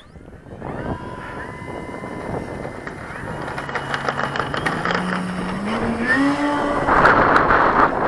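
Electric RC model plane's brushless outrunner motor (Rimfire 1.60) and 18x10 carbon propeller spinning up for takeoff: a steady high whine, then a lower tone that rises in pitch in steps as the throttle is opened, and a loud rush of noise near the end as the plane climbs away.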